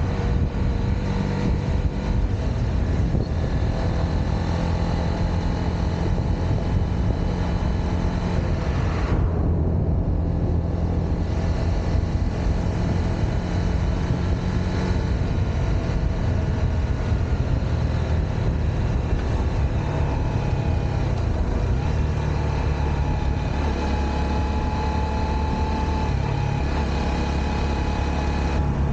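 Honda CBR motorcycle engine running under way, heard from on the bike over a steady rushing noise; its note holds and then shifts in pitch several times as the revs change.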